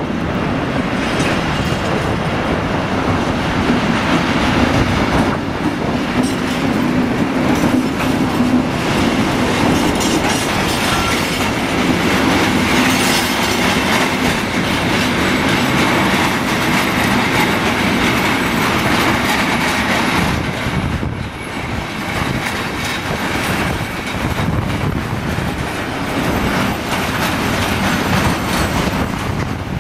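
Electric locomotive hauling a long container freight train past at close range: a steady heavy rumble with the wagon wheels clattering over the rail joints.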